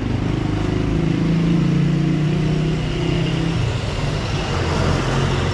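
Street traffic: a motor vehicle's engine running close by over general road noise, its low hum shifting in pitch through the middle.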